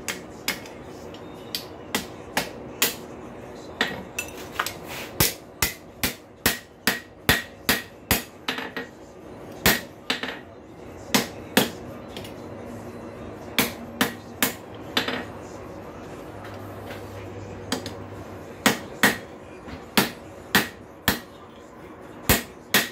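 Hand hammer striking a chisel through a rail spike on an anvil: runs of sharp metal blows, about two to three a second with short pauses, and a faint ring between them. This is the cut being driven through to split the spike.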